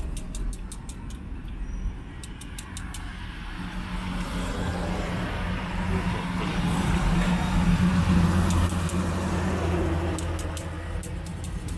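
A motor vehicle engine running close by: a steady low hum that grows louder through the middle and eases off toward the end. A rapid, even high ticking comes near the start and again near the end.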